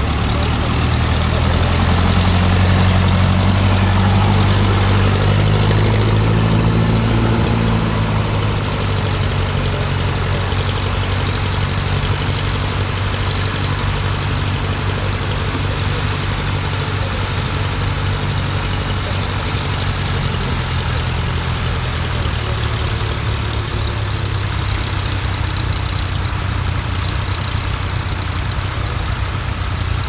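Ferguson TE20 tractor's four-cylinder engine running steadily under load as it pulls a mounted plough. It is loudest as it passes close in the first several seconds, then grows fainter as it moves away.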